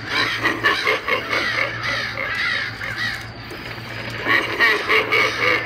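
Pumpkin-headed Halloween animatronic playing its recorded sound effects: raspy, crow-like cawing calls, with a short lull about three seconds in, over a steady low hum.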